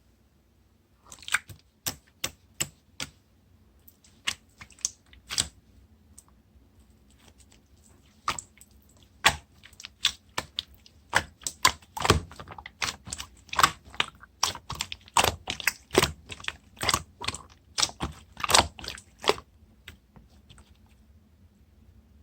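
Irregular sharp taps and clicks, a few at first, then coming thick and fast from about eight seconds in, stopping a few seconds before the end.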